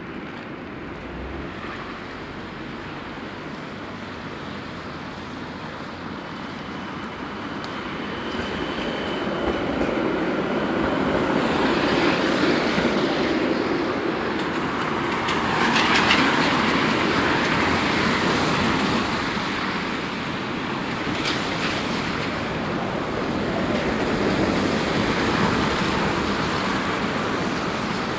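Traffic passing on a wet city street, the noise swelling to its loudest about twelve to sixteen seconds in, with a few sharp clicks near the middle and a brief faint high whine.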